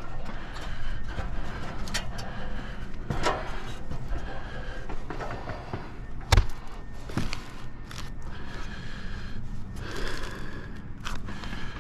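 Irregular knocks, clicks and scrapes over a steady low hum, with one loud thump about six seconds in.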